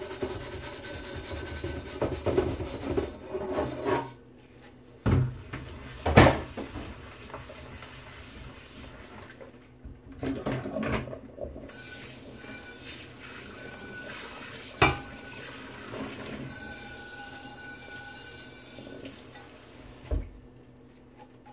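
Stripped cast iron skillet being scrubbed with a stainless steel brush and rinsed in a stainless steel sink. Rasping brush strokes for the first few seconds, then a few sharp clanks of iron against the sink over running tap water.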